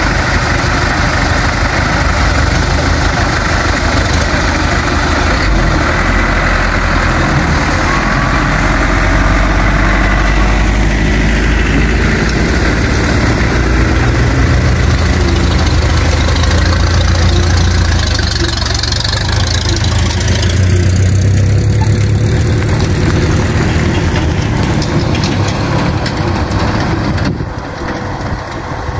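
Truck engines running at close range, idling with a rise and fall in revs partway through, then fading as the pickups pull away near the end.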